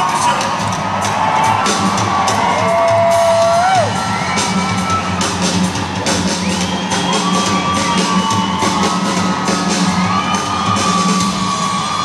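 A live rock band playing amplified in an arena, with drum strikes and a steady bass under held, gliding higher notes, while the crowd whoops and cheers. It is heard from far up in the stands.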